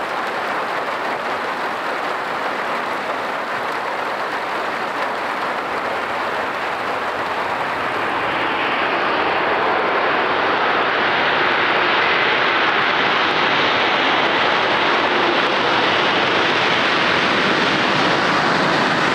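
Engines of a landing aircraft, a steady rushing noise that grows louder from about eight seconds in.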